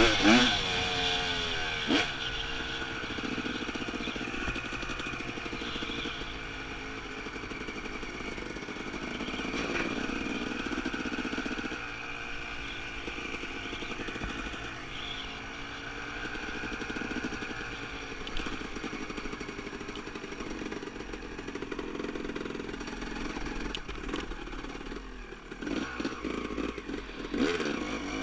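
Dirt bike engine running, revved up briefly at the start and again near the end, running at steadier, lower revs in between.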